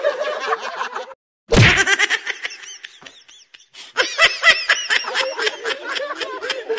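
A group of men laughing loudly and heartily, with one sharp smack about a second and a half in, a hand slapping a full-face motorcycle helmet.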